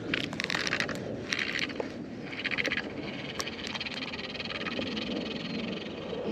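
Rustling and scraping handling noise from the angler's sweatshirt and gear rubbing near the microphone, in several short spells, with a few light clicks.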